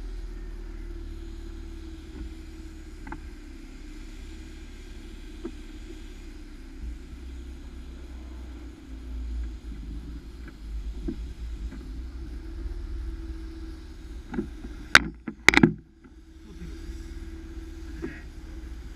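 Mercedes-Benz W124 coupe engine running with a steady low hum as the car idles and then creeps forward. A quick cluster of sharp knocks comes about three-quarters of the way through.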